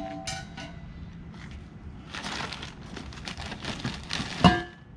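Plastic packaging wrap rustling and crinkling as it is pulled about in a cardboard box, with one sharp knock and a short metallic ring near the end.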